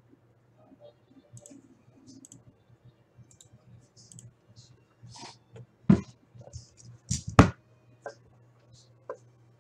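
Clicking and tapping on a computer keyboard and mouse, with three much louder sharp knocks about six and seven seconds in. A faint steady low hum sits underneath.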